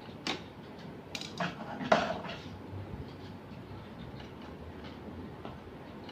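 Tools and small hard parts of a Canon LBP6000 laser printer clinking and knocking during reassembly: a few sharp clicks, the loudest about two seconds in.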